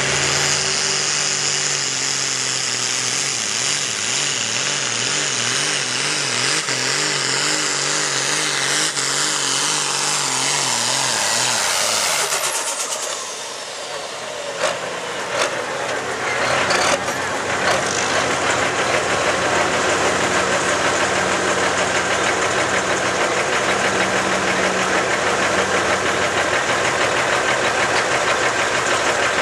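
A Pro Farm pulling tractor's diesel engine runs at full throttle under load, dragging a weight-transfer sled, its pitch wavering up and down about twice a second. After a sudden change about twelve seconds in, a pulling tractor idles steadily, stopped with the sled at the end of its run.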